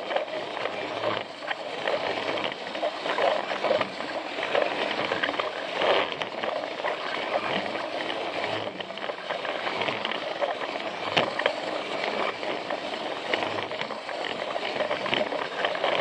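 Plarail toy train running on plastic track: the small battery motor and gears whirring, with irregular clicking and rattling as the wheels pass over track joints, picked up by a camera riding on the train.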